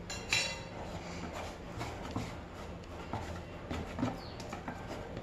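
Hand patting and rubbing oil over soft yeast dough in a plastic tub: a string of soft, uneven pats, with a brief scrape near the start.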